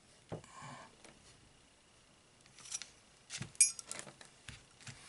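Small metal parts of a rifle scope being handled during reassembly: scattered light clicks and taps, with one sharper metallic clink that rings briefly about three and a half seconds in.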